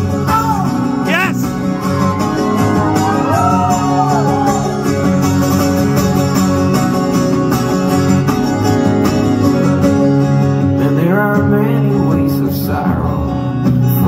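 Solo acoustic guitar played live, a steady run of plucked and strummed chords with no lyrics sung.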